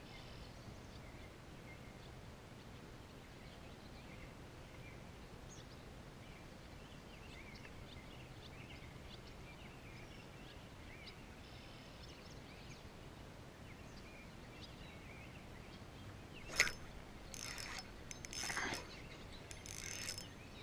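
Quiet pond-side ambience with faint, scattered bird chirps. About three-quarters of the way through, a sharp click and then a few seconds of spinning-reel handling and cranking as a fish is hooked.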